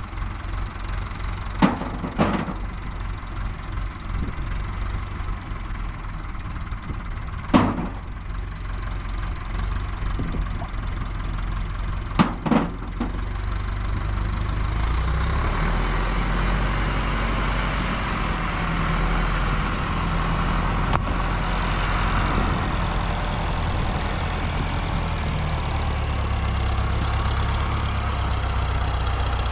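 A motor engine running steadily at idle, with a few sharp knocks in the first half; from about halfway through a louder hiss of noise joins it.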